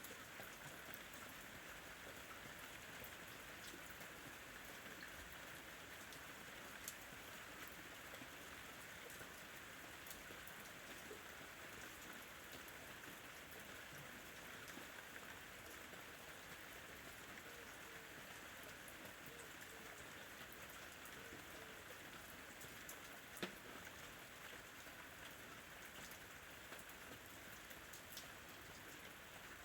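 Soft, steady rain with scattered drop ticks, a faint ambient rain track. One sharper tick stands out about two-thirds of the way through.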